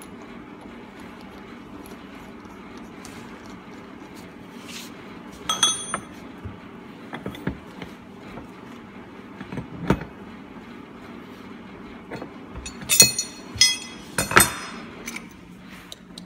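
Metal fittings and a steel spanner clinking and knocking on a workbench as a flowstopping gas bag's metal neck fitting is handled. There are scattered clicks and a knock, then three sharp, ringing metallic clinks near the end, over a steady low hum.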